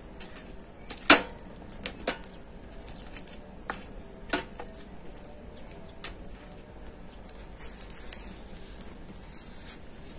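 Firewood burning in a steel mangal, crackling with sharp pops: the loudest about a second in, several smaller ones over the next few seconds, then fewer.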